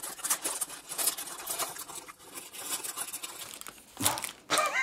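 Paper hamburger wrappers rustling and crinkling as they are handled and unwrapped, with a breathy 'ha~' sigh about four seconds in.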